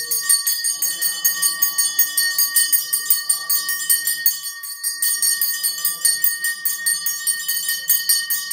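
A small brass temple bell rung rapidly and steadily in a fast, even clanging with a sustained ring, as during Hindu aarti worship. Voices are heard faintly underneath.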